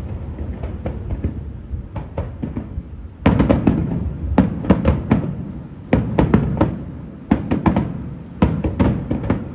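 Aerial fireworks shells bursting over a low continuous rumble. A few faint bangs come in the first three seconds, then from about three seconds in there are rapid volleys of loud, sharp bangs, a cluster roughly every second.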